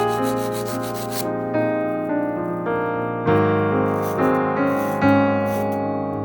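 Background music on piano or electric keyboard with changing melodic notes. For about the first second, rapid rubbing strokes, like sanding, run under it and then stop.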